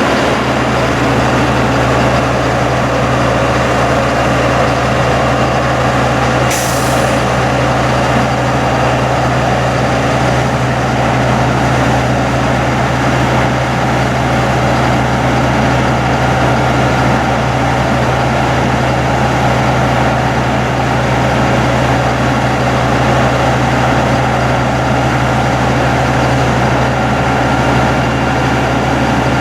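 Sterling LT7500 hydro-excavator truck's diesel engine running steadily at raised RPM, around 1,800 to 2,000, to drive the jet-vac system at full pressure. A short hiss of air comes about six and a half seconds in.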